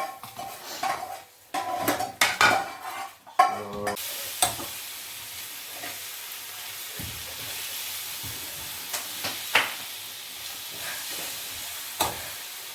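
Chicken and cashew nut sauce frying in a skillet, stirred with a utensil that clatters and scrapes against the pan in the first few seconds. After that the frying settles into a steady sizzle, with a few sharp clicks of the utensil on the pan.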